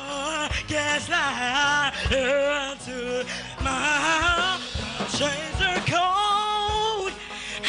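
A voice singing a melody with strong vibrato over backing music with a steady drum beat.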